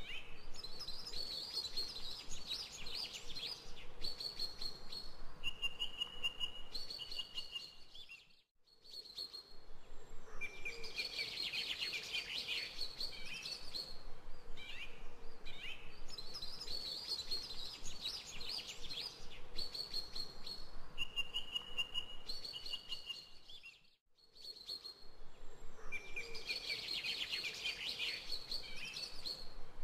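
Birds chirping and trilling in short high calls over a faint steady hum, as a looping background track. The same stretch repeats, dipping to a brief silence twice.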